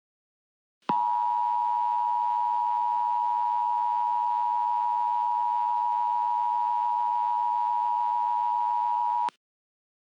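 Steady electronic alert tone, pitched near 1 kHz and unchanging, heralding a tornado watch message. It starts about a second in, holds for about eight seconds and cuts off abruptly.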